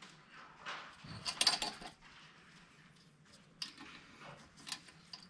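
Light metal clicks and clinks of the diesel injector's retainer bracket and its small fasteners being handled and fitted, busiest about a second and a half in, then a few single clicks.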